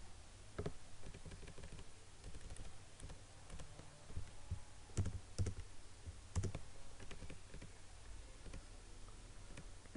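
A few scattered, irregular clicks of a computer mouse and keyboard over a low steady hum.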